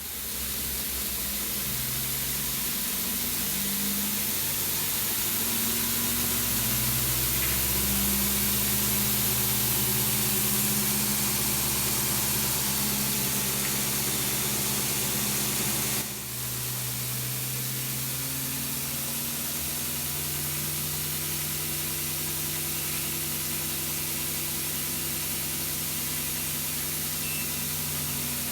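Homemade 2x72 belt grinder running, driven by a 600-watt DC treadmill motor: a steady belt hiss over a motor hum that shifts up and down in pitch in steps, with a sudden break about 16 seconds in.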